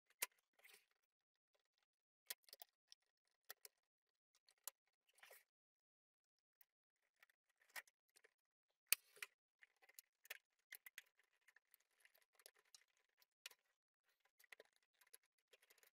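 Faint scattered clicks, taps and rustles of the Amiga 1000's logic board and plastic case being handled and fitted together, with one sharper click about nine seconds in.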